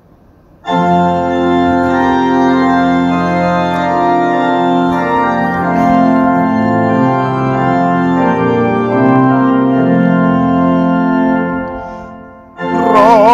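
Organ playing a hymn introduction in slow sustained chords. It comes in about a second in, dies away shortly before the end, and then a new chord enters.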